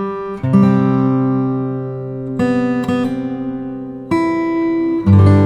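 Background music: guitar chords struck about every one and a half to two seconds, each ringing on and slowly fading.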